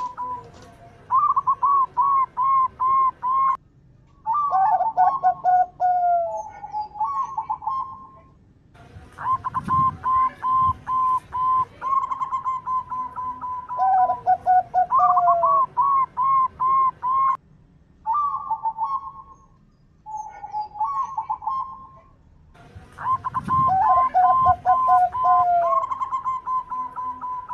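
Zebra doves (perkutut) cooing: repeated rolling strings of coo notes, with two calls overlapping at times. The song breaks off abruptly into short silences a few times, then resumes.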